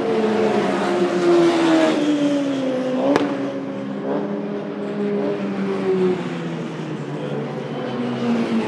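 Race car engines passing through a corner, several cars one after another, their notes falling in pitch as they slow for the bend and stepping as gears change. A single sharp click about three seconds in.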